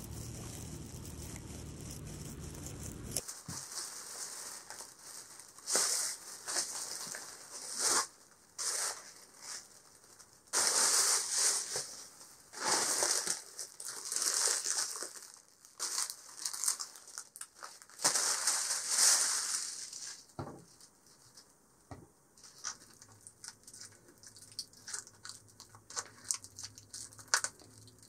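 Thin plastic shopping bag rustling and crinkling in repeated loud bursts as groceries are lifted out of it, after a steady low noise in the first three seconds. Near the end, quieter scattered crackles of plastic film being peeled off an aluminium food tray.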